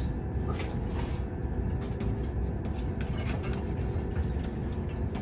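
Chalk writing on a chalkboard: faint irregular scratches and taps of the chalk over a steady low room rumble.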